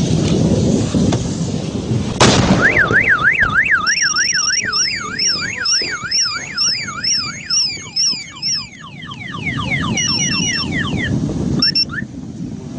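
A sharp bang, then a car alarm goes off and cycles through its tones: a fast rising-and-falling warble, about two and a half sweeps a second, with a second, higher pattern joining in, then quicker falling sweeps and a few short beeps.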